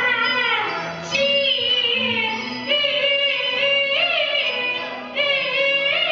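Peking opera singing: a high, wavering voice sings three phrases with a bending, trembling pitch.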